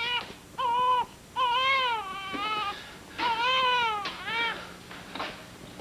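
Newborn baby crying: a run of about five short wails, each rising and then falling in pitch, with brief gaps between them.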